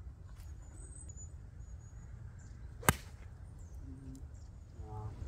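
A golf iron striking the ball off the tee: a single sharp click about three seconds in, over a steady low background rumble.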